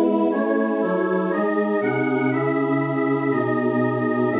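Computer-rendered MIDI playback of all the voice parts of a choral arrangement at once, in steady organ-like held tones moving from chord to chord. A low bass note comes in a little under two seconds in and holds.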